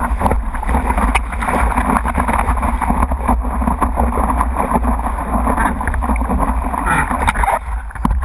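Water rushing and slapping against a surfboard as it rides a small wave, with many short splashes. Steady low wind buffeting on a microphone mounted on the board.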